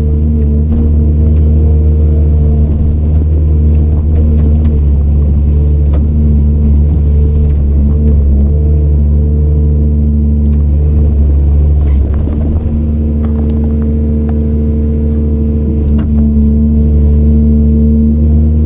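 Heavy diesel earthmoving machinery running steadily with a deep, even drone, with a few sharp knocks scattered through it, the loudest at about twelve seconds in.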